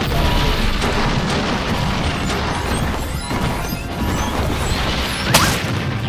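Cartoon sound effect of a toy machine crashing and exploding: a loud, continuous crashing rumble over background music, with a sudden sharp hit about five seconds in, the loudest moment.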